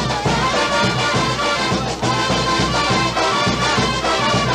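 Carnival tonada played by a brass band, horns carrying the melody over a steady drum beat.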